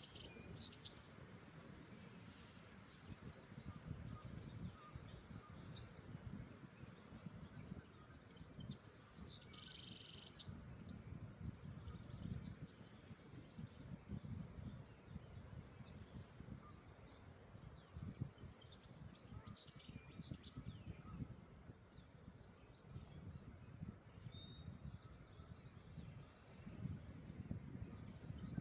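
Songbirds singing, one repeating a short high phrase, a thin level whistle followed by a quick falling burst, about every ten seconds. Low wind rumble runs underneath.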